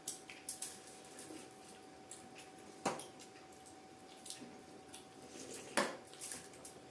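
Eating sounds at a table: a few sharp clicks of utensils against a dish, roughly every two to three seconds, between smaller clicks and soft wet mouth sounds.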